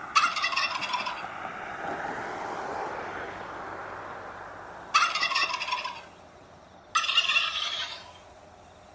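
Turkey gobbling three times, each gobble a fast rattling call about a second long: once at the start, then two more close together about five and seven seconds in.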